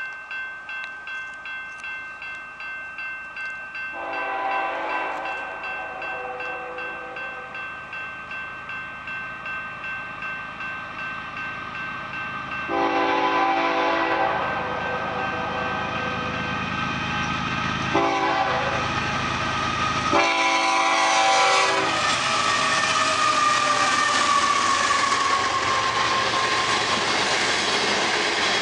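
Grade-crossing bell ringing about twice a second while an approaching BNSF freight locomotive's horn sounds the crossing signal: long, long, short, long. Then the GE diesel locomotives and the oil tank cars pass close by at speed, rumbling and clacking over the rails.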